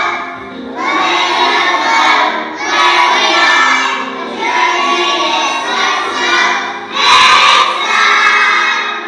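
A group of young children singing loudly together in short phrases over a steady instrumental accompaniment, with one louder, shouted-sounding phrase about seven seconds in.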